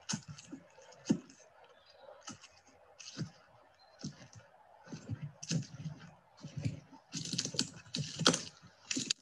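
Irregular clicks, crackles and rustling bursts from a stage soundscape of bog and forest, densest and loudest in the last two seconds.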